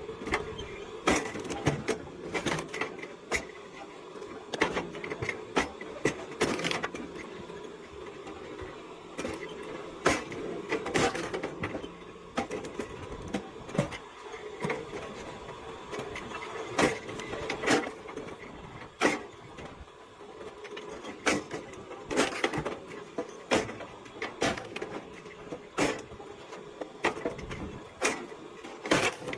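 Motor-driven log splitter running with a steady hum, with irregular sharp knocks and cracks of wood, about one or two a second, as logs are split and the halves fall.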